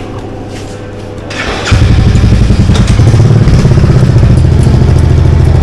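Royal Enfield Scram 411's single-cylinder engine starting about a second and a half in, then running steadily and loud.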